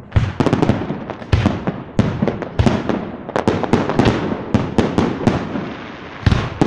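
Fireworks display: aerial shells bursting in a fast, uneven string of sharp bangs and cracks with hardly a pause, a few heavier booms among them.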